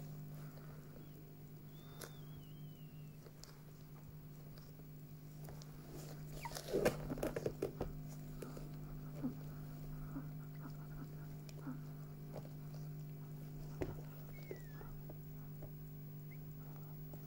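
Newborn chihuahua puppy giving thin, high squeaks: a wavering squeal about two seconds in and a short falling one near the end. In the middle come a few seconds of louder rustling and handling as gloved hands rub the puppy.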